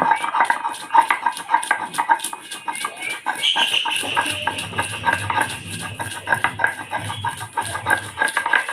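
Mustard seeds and green chilli being ground into a paste: a rhythmic scraping at about four strokes a second.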